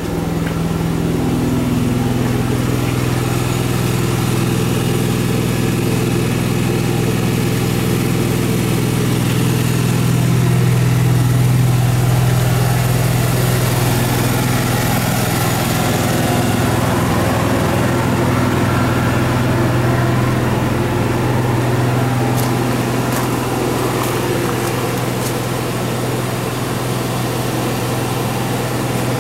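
An engine idling steadily, a constant low hum.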